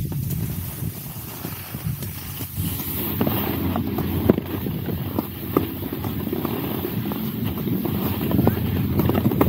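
Wind noise on the microphone of a camera carried by a skier gliding over packed snow, with the skis hissing on the snow and a few light clicks.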